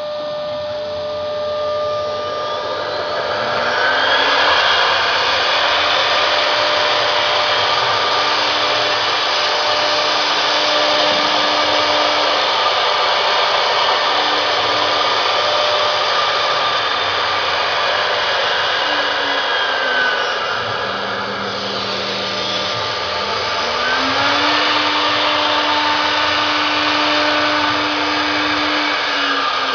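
Spindles of a three-head CNC router running and cutting grooves into a wooden board: a steady loud whirring that builds over the first few seconds, with a lower motor tone that steps and glides up and down in pitch as the heads move.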